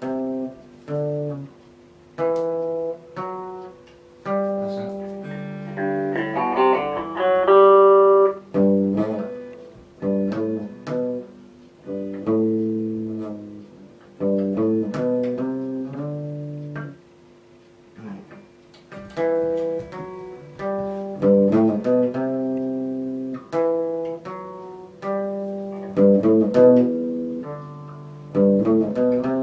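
Two electric guitars played together, picking single-note lines and melodic phrases with some notes left to ring out.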